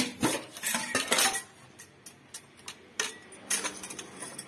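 Steel spoon clinking against the small stainless-steel cups of a spice box as black peppercorns are scooped out: a run of sharp metallic clinks about a second in, and a few more about three seconds in.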